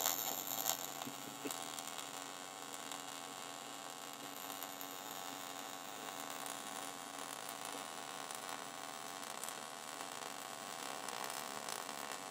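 Lincoln Power MIG welder laying a bead on a steel motor mount against the Jeep's frame: a steady crackling hiss of the arc over a low hum, a little louder in the first second or so.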